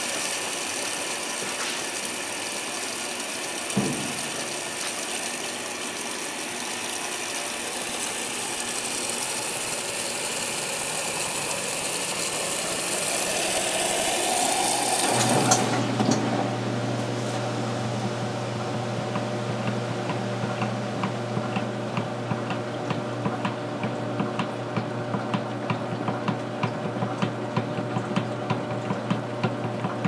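Vintage Sears Kenmore belt-drive washing machine filling, a steady hiss of water running into the tub. About fifteen seconds in the fill shuts off and the agitation starts: a steady low motor hum with a regular clicking.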